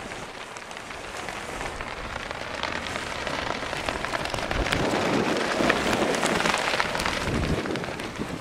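Wind rushing over the microphone with dense crackling and rustling, rising to its loudest a little past the middle and easing off near the end.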